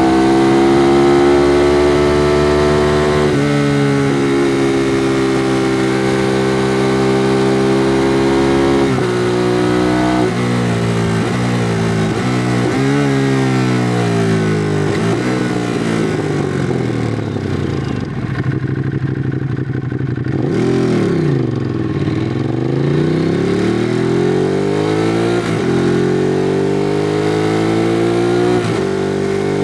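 2016 Ducati Monster 821's L-twin engine through its stock exhaust, heard from on board while riding. It holds steady revs at first and steps down in pitch a couple of times. It then rises and falls quickly several times, drops to low revs about two-thirds of the way in, and climbs again in a series of rising pulls through the gears.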